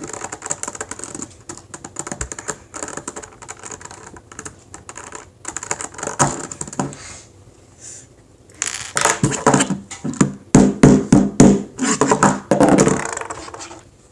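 Plastic Rubik's cube pieces clicking and clattering as they are handled and fitted back together, with a run of louder knocks and clacks about two-thirds of the way in.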